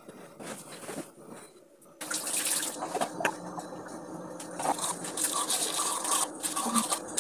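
Teeth being brushed with a toothbrush: a wet, scratchy scrubbing that starts suddenly about two seconds in, after a quieter start.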